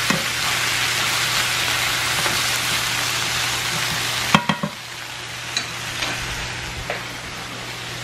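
Chicken drumsticks and sliced onions sizzling in a frying pan while a wooden spoon stirs them. A few sharp knocks come about halfway in, after which the sizzle is much quieter.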